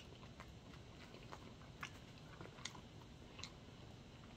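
Faint chewing of a mouthful of Papa John's steak Papadia, a folded flatbread sandwich, with a few soft mouth clicks scattered through it.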